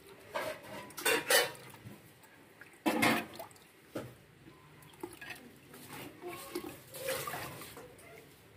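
Bangles clinking irregularly and a hand sloshing in buttermilk as freshly churned butter is scooped out of a clay pot, with a few knocks against the pot.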